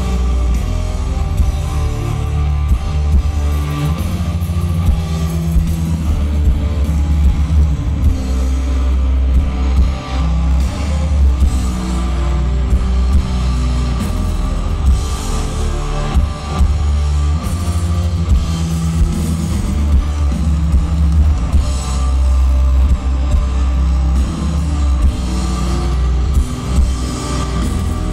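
A post-metal band playing live through a large PA: distorted electric guitars, bass and drum kit. The deep bass is the loudest part of the sound.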